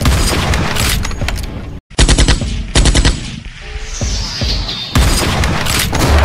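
Loud rapid volleys of bangs like machine-gun fire, in bursts, cutting out for a moment just before two seconds in.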